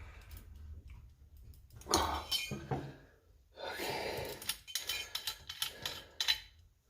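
Small metal stove parts and hand tools clinking and scraping in several separate bouts, with sharp clicks, as the stove is worked apart by hand.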